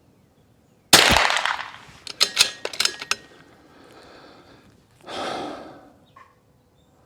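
A single .22 LR rifle shot from a Desert Precision Gunworks RIM-X firing SK High Velocity ammunition about a second in, with a long ringing tail. It is followed by a quick run of sharp metallic clicks as the bolt is worked, then a softer rush of noise and one last click near the end.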